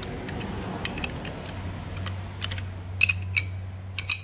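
Sharp metal clinks of a ring spanner on a Scania diesel engine's timing-gear nut as the gears are turned by hand, bringing the injection pump round to find its timing. A steady low hum starts about a second and a half in.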